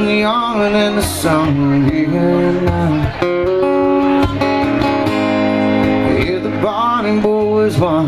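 A man singing live into a microphone while playing an acoustic guitar, amplified through a PA speaker.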